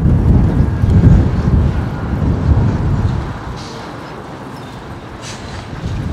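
Mitsubishi Fuso heavy truck with an empty trailer approaching, its diesel engine and tyres giving a low rumble that is loudest in the first few seconds, dips, then rises again near the end.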